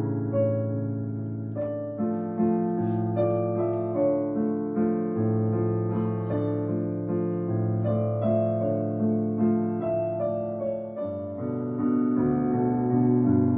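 Background music played on piano: a melody of struck notes over long-held bass notes.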